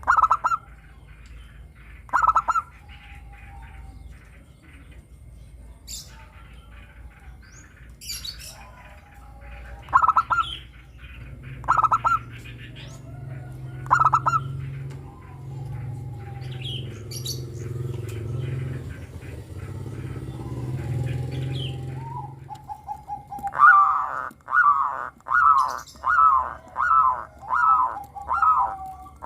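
Zebra doves (perkutut) cooing: single short coos every couple of seconds, then near the end a quick run of about ten rolling coos. Higher chirps from other small birds come in here and there, and a low hum runs through the middle.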